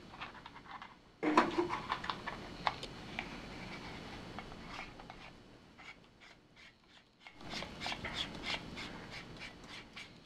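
Hands handling plastic parts: a Moticam microscope camera and a clear plastic macro tube being fitted together, with rubbing and light clicks, loudest about a second in and again around eight seconds.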